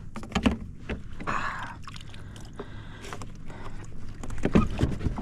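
A hooked redfish thrashing its tail at the water's surface beside a kayak: irregular splashes and knocks against the hull, busiest near the end.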